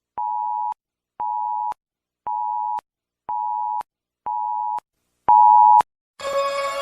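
Simulated emergency alert system warning tone: six short electronic beeps, evenly spaced about one a second, each a steady pair of close pitches, the last one louder. Just before the end a louder, noisy sound with a held tone cuts in.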